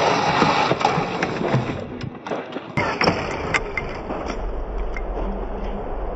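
Traxxas TRX-4 scale crawler with a Hobbywing Quicrun Fusion brushless motor driving through loose dirt and sand: motor whir and tyres churning the ground. It is loudest for the first two seconds, then quieter, with scattered clicks and knocks.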